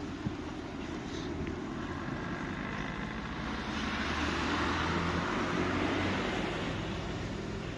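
Car passing on a street, its tyre noise swelling to a peak around the middle and then fading, over a steady low engine hum.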